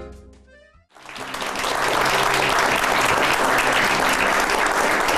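The show's theme music dies away in the first second, then a studio audience bursts into clapping, building within a second to steady applause.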